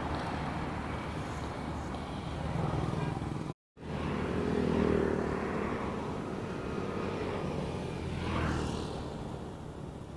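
Expressway traffic noise: a steady low rumble of vehicles driving past, with one vehicle passing by about eight seconds in. The sound cuts out briefly after about three and a half seconds.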